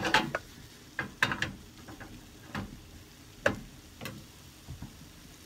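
A wooden spatula knocking and scraping against a stainless-steel skillet as potato hash is stirred: several separate sharp knocks, most of them in the first four seconds.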